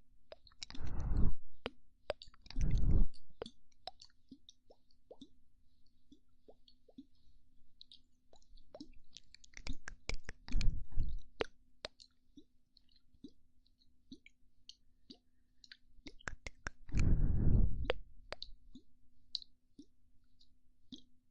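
Close-up ASMR mouth sounds: scattered wet clicks and pops, broken by four breathy blows of air into the microphone.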